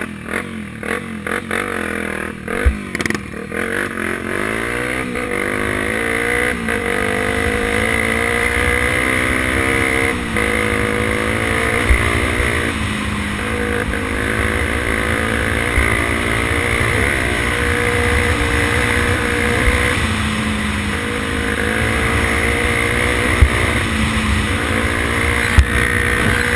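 Honda XR 250 Tornado's single-cylinder four-stroke engine accelerating hard under load. Its pitch climbs and drops back at each gear change, several times over, and a few sharp knocks come through.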